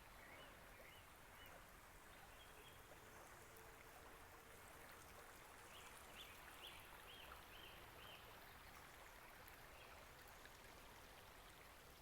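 Faint steady trickle of a small creek, with a bird giving short repeated chirps: a few near the start and a run of about five between six and eight seconds in.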